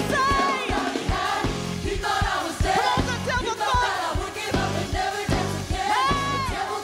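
Gospel choir singing with a live band, drums and bass keeping a steady beat under the voices.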